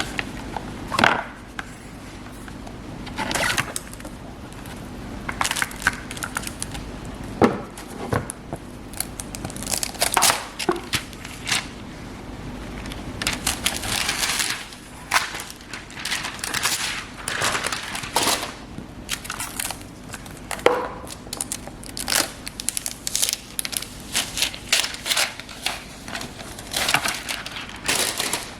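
Tablet packaging being unboxed by hand: plastic wrap and cardboard crinkling and rustling in irregular bursts, with a few sharp knocks.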